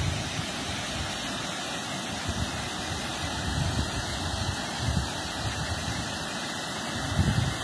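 Steady rushing outdoor noise with gusty low rumbling underneath.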